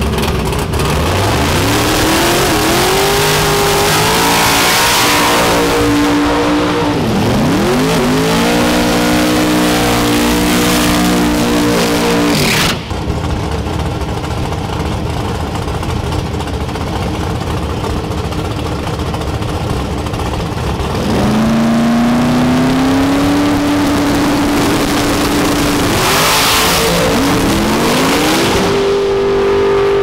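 Drag-racing V8 engines (a Hemi and a nitrous big-block) revving at the starting line: pitch climbs, dips and is held steady at high revs, with an abrupt break about halfway through. Near the end they go to full throttle on the launch, and the engine note climbs and holds high.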